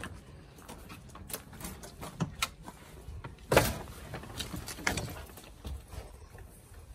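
Footsteps and knocks of a person climbing fold-out entry steps and passing through an RV's entry door, with scattered clicks and a sharp clunk about three and a half seconds in, the loudest.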